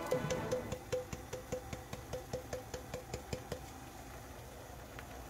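Chopsticks tapping against the rim of a metal pot: about fifteen light, ringing taps at roughly four a second, stopping about three and a half seconds in.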